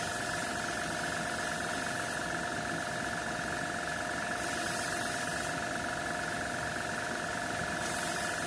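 Small airbrush compressor running with a steady hum, while the airbrush's hiss of air comes and goes three times as paint is sprayed.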